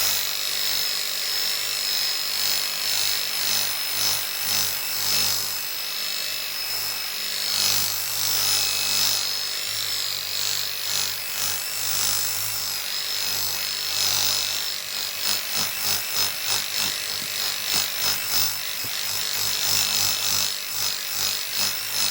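Electric polisher running steadily as it buffs a cured epoxy resin table top. Its motor hums and whines at an even pitch, the level rising and dipping a little as it is worked over the surface, and it cuts off right at the end.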